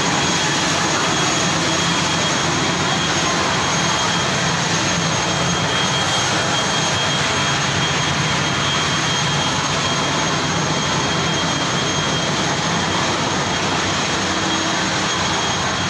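Aircraft engine noise: a loud, steady rush with a thin high whine held at an even pitch.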